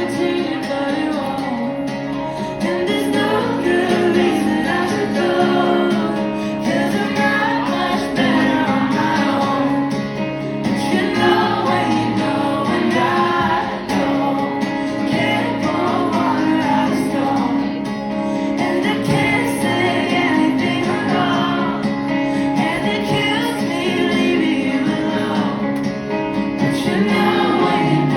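Live band playing a song, with sustained sung vocal harmonies over guitar and a steady full-band accompaniment.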